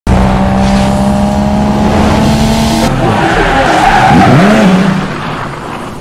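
Car engine holding a steady high note, then after about three seconds tires squealing with a swooping, wavering pitch. The sound fades away near the end.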